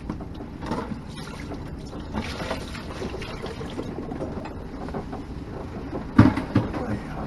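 Sailboat under way in a lively sea: steady water and hull noise with scattered small knocks, and one loud knock about six seconds in.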